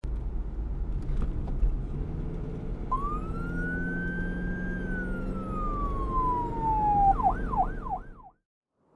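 A siren-like whistling tone over a low rumble. The tone starts about three seconds in and rises, then slowly glides down. Near the end it warbles up and down three times before everything cuts off suddenly.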